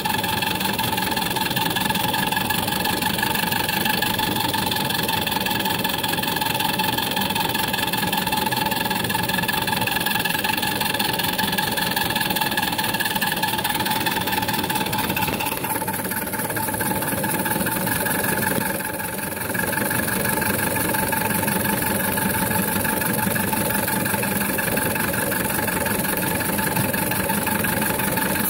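Model steam lorry's steam engine running as the lorry drives along, with a steady high whine over the mechanical running noise. The upper part of the whine drops away about halfway through.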